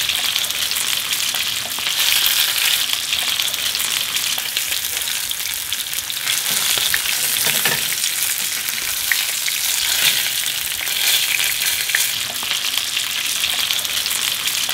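Flatfish frying in hot oil in two frying pans, making a steady sizzle. A few light spatula scrapes come as the fish is turned over.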